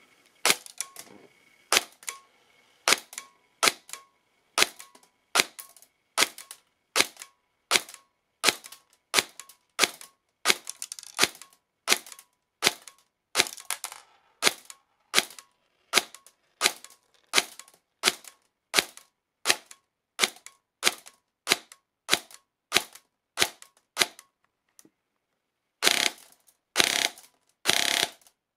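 Airsoft gun with a 3D-printed air nozzle firing single shots through a chronograph at a steady pace, about one to two a second, as the new nozzle is tested for velocity with the hop-up off. After a short pause near the end come three louder, longer bursts.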